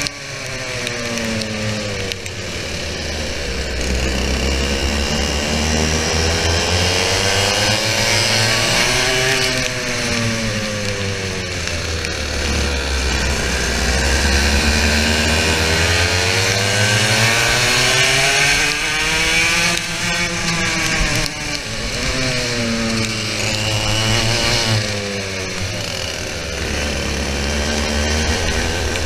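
TKM BT82 100cc two-stroke kart engine at racing speed, heard onboard. The revs climb on the straights, with two long climbs peaking about 9 and 20 seconds in, and drop for the corners, over a steady hiss.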